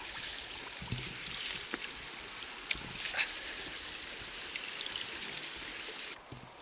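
Mountain stream running, a steady hiss of water, with a few light knocks mixed in. The water sound drops away suddenly near the end.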